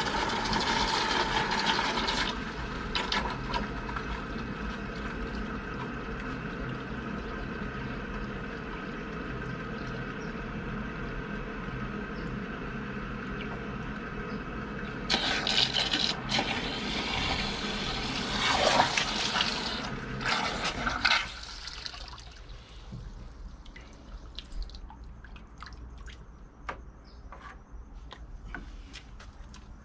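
Water running and splashing during a vinegar descaling flush of a tankless water heater, over a steady low motor hum. The water gets louder and splashier about halfway through, then the water and the hum stop abruptly about two-thirds of the way in, leaving faint clicks of handling.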